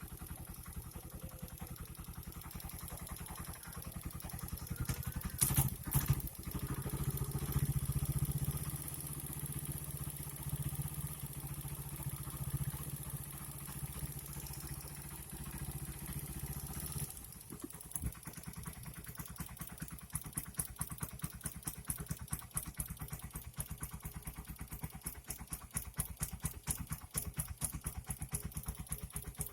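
Suzuki Satria FU motorcycle engine running with a loud mechanical clatter, likened to a rice-milling machine. It is revved up about five seconds in and drops back past halfway to a rhythmic ticking idle. The owner takes the noise for a fault and tags it to the cylinder block and head.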